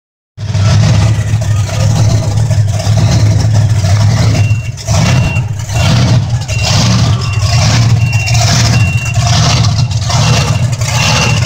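Monster truck engine running loudly with a deep drone, surging in quick repeated revs about every second. A high, steady beeping about twice a second joins about four seconds in.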